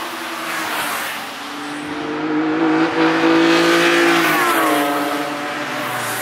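Sports car engine at high revs passing close on a racetrack. The engine note climbs from about two seconds in, holds, then drops in pitch as the car goes by a little after four seconds in.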